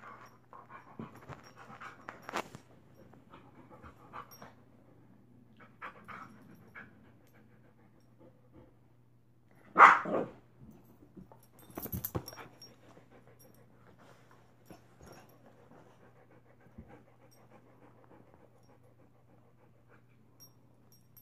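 Two dogs nuzzling and licking at each other's faces, with soft breathing, snuffling and mouth sounds. One short loud sound comes about ten seconds in, and a cluster of sharp clicks and rustles about two seconds later.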